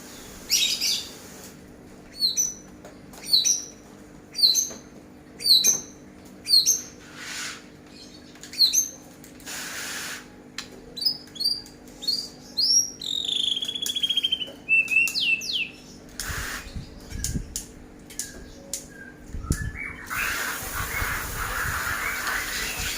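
A songbird calling: short, sharp squawking calls about once a second, then quicker twittering with a falling trill, then a rougher, hissy stretch near the end.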